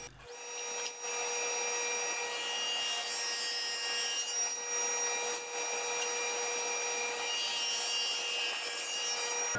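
Table saw running and cutting a groove in a piece of 3/4-inch white pine fed along the rip fence: a steady whine of motor and blade over the hiss of the cut.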